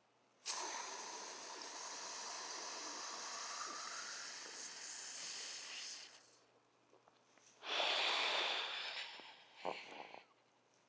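A man inhales forcefully through an o2trainer breathing-resistance mouthpiece, a long even rush of air lasting about five and a half seconds. After a short pause comes a stronger, shorter exhale of about a second and a half, then a brief final puff.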